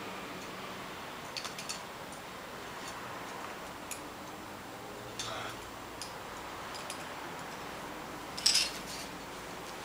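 Scattered light clicks and ticks over a steady hiss, with one louder, sharper rattle about eight and a half seconds in.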